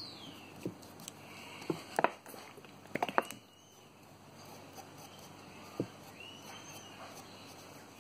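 Gloved fingers rubbing and dabbing linseed oil onto the brass plate and slotted screws of a wooden spirit level: soft, scattered taps and rubs, a handful of light clicks against the brass and wood.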